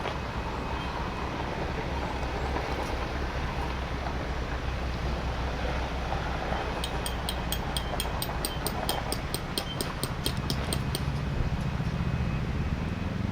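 A steady low rumble, like a passing vehicle or train. In the second half comes a fast, even series of sharp, high metallic ticks, about three to four a second, which stops for a couple of seconds near the end.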